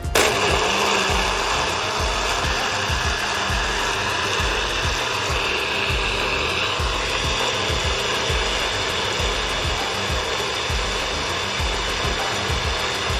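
Bullet-style personal blender (Magic Bullet motor base with a NutriBullet cup) running at full speed, blending a smoothie with ice cubes in it. It starts suddenly as the cup is pressed down and runs steadily.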